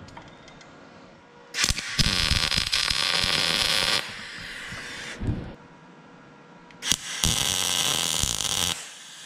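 Wire-feed welder tack welding a steel bracket: two bursts of steady arc crackle, the first about two and a half seconds long starting about a second and a half in, the second about two seconds long near the end. A short low thud falls between them.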